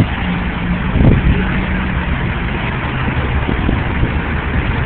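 Steady highway traffic and motor-vehicle engine noise, a continuous low rumble with an engine running at idle under it.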